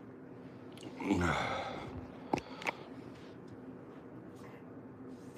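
A man's heavy, laboured breath about a second in: a voiced sigh falling in pitch. It is breathing that he puts down to COPD in the very cold air. Two short clicks follow soon after.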